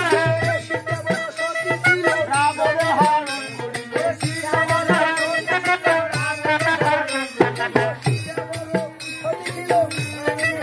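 Bengali folk band playing an instrumental dance passage: a clarinet and trumpet melody over rapid barrel-drum strokes and harmonium, with rattling percussion throughout.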